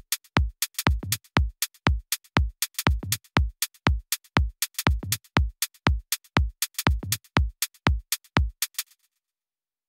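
Electronic background music with a steady drum-machine beat, which stops abruptly near the end.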